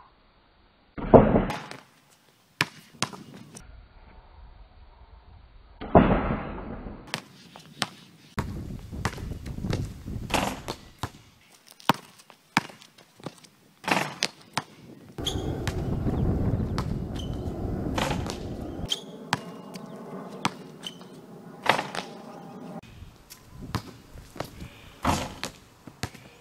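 Basketball dunk session on an outdoor hoop: sharp slams and clangs of the ball and hands hitting the rim and backboard, and the ball bouncing on the concrete court, repeated over several dunks. Stretches of steady rushing noise come in between the impacts.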